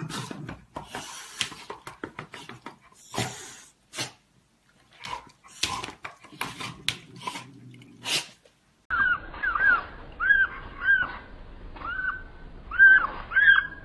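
A cat and a dog play-fighting: soft scuffles, knocks and snuffling breaths. About nine seconds in, ducklings start peeping, about ten short rising-and-falling peeps, the loudest near the end.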